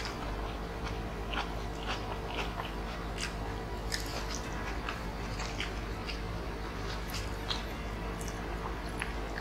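Close-miked eating sounds of people chewing rice and crunchy fried snack pieces eaten by hand: wet chewing with many small irregular clicks and crunches.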